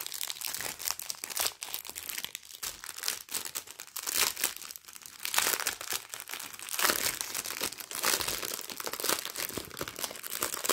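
Clear plastic wrapping crinkling and crackling in quick irregular bursts as it is handled and peeled open around a bundle of bagged diamond-painting drills.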